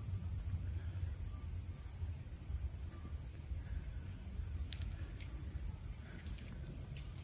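Night insect chorus, crickets among them, a steady high-pitched drone over a low rumble, with a few faint clicks about five seconds in.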